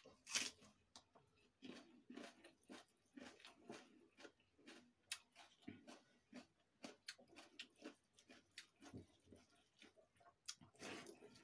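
Faint, close-up chewing of leftover rice and raw onion eaten by hand: irregular soft crunches and wet mouth clicks, with a louder bite just after the start and again near the end.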